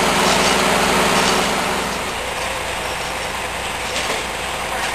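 Murphy diesel engine running, driving a sawmill. The heavier working sound of the first two seconds drops away about two seconds in, leaving a steadier, quieter engine note.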